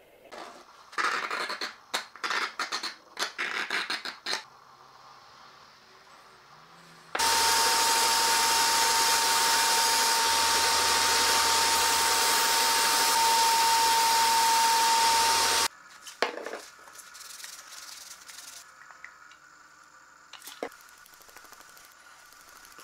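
Belt grinder running steadily with a steady whine and low hum for about eight seconds, starting and stopping abruptly, while a knife part is held against the belt. Before it come a few seconds of short, uneven rubbing sounds.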